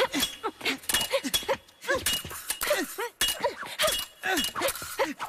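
Fencing blades clashing in a fast bout: many sharp metallic clinks in quick succession.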